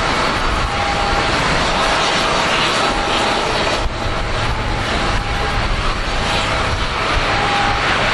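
Steady, loud rushing whine of jet turbine noise on the airport apron, with a faint higher tone that comes and goes about every two seconds.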